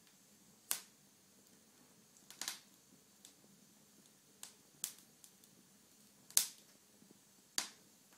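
Logs burning in an open fire, popping and crackling with sharp, separate snaps at uneven gaps of about a second, the loudest about six seconds in, over a faint steady hiss.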